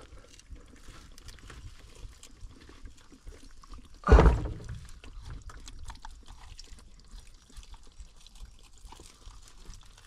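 Water sloshing and trickling as a mud crab is worked out of its hole in the creek bank by hand, with one louder slosh about four seconds in, over a faint steady crackle of small clicks.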